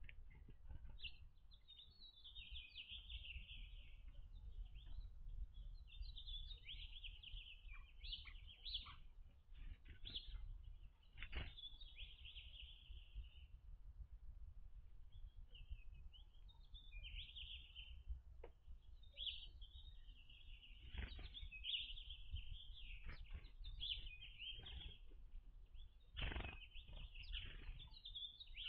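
Small songbirds chirping and twittering faintly in repeated bursts, over a low steady rumble, with a few soft thumps.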